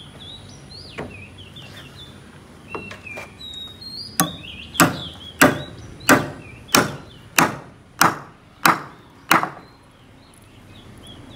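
Hammer blows on timber fittings: a few light knocks, then from about four seconds in a run of about nine sharp, evenly paced strikes, roughly one and a half a second. Birds chirp faintly.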